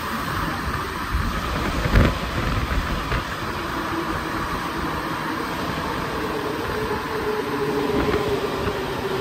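Alstom NS-93 rubber-tyred metro train heard from inside the car while running: steady rolling noise, with a single knock about two seconds in and a pitched hum that grows stronger in the second half.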